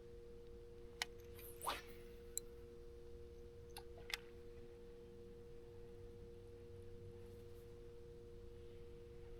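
Faint steady two-tone hum, with a few brief small clicks in the first four seconds.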